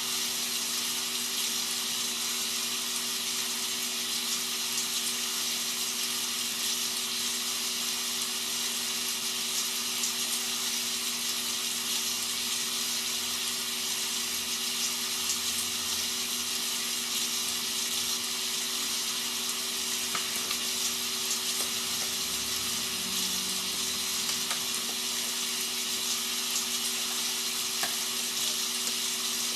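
Rain sound effect played as white noise: a steady, even hiss of falling rain, with a faint steady low hum underneath.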